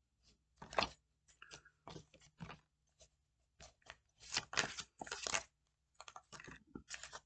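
A deck of cards being shuffled and handled: short papery riffles and flicks in irregular bursts, with a longer run of shuffling about four to five and a half seconds in.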